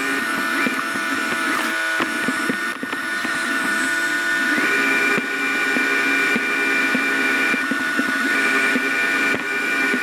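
DeenKee D40 robot vacuum running, heard from on top of the robot: a steady motor whine with a few fixed pitches, some fading out and returning now and then, and small irregular knocks as it drives across the floor.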